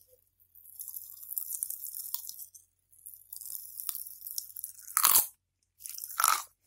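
Cola Pop Rocks popping candy crackling in a mouth held right up to the microphone: stretches of rapid tiny pops and fizzing, with two louder bursts near the end.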